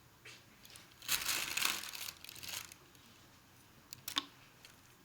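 Packaging crinkling in the hands for about a second and a half, as a lip liner is unwrapped. A couple of light clicks come near the end.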